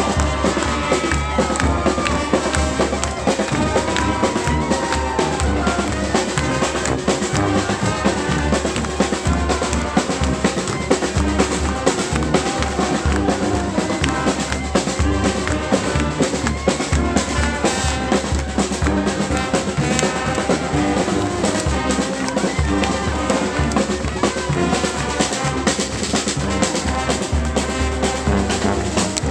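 Street brass band playing: horns over snare and bass drum keeping a steady beat.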